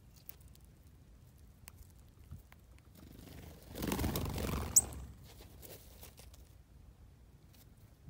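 Songbirds, a northern cardinal among them, flushing off the snow together: a whir of wingbeats lasting about a second, with one sharp high chip near its end.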